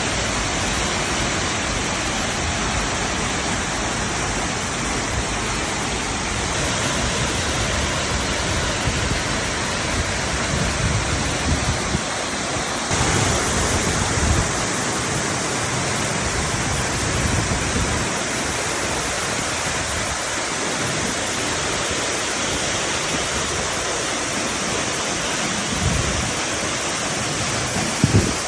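Waterfall: a steady rush of falling water, with a few low bumps in the middle and a short knock near the end.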